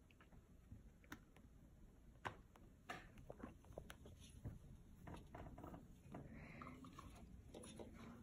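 A 5-week-old kitten's claws scratching and catching on sofa upholstery and a blanket as it scampers and paws. The sound is faint: irregular small clicks and scuffs, busiest in the middle.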